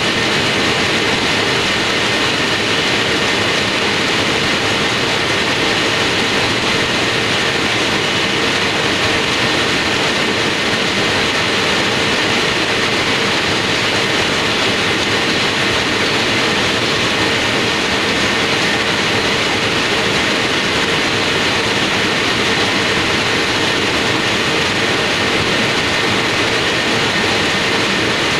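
Factory production machine running continuously: a loud, even mechanical noise with a constant hum and a couple of steady high whines, unchanging throughout.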